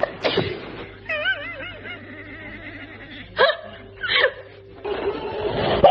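A person sneezing: sudden bursts about a quarter-second in and again at the end, with short wavering and falling calls in between.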